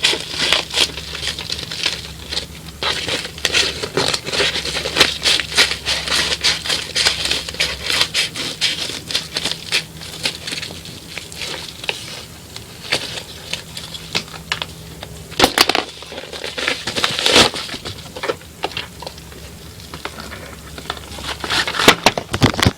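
Opening and unpacking a mailed package holding a VHS tape: a dense run of crinkling, rustling and clicking packaging noises, with two louder sharp rips or snaps about two thirds of the way in.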